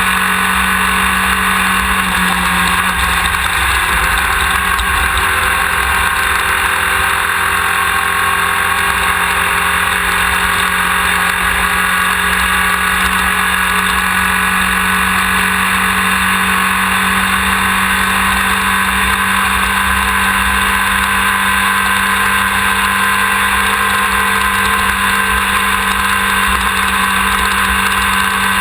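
Off-road race car engine running hard at a steady pitch, close to the camera on the car's rear, with a loud continuous rush of drivetrain and terrain noise and no gear changes.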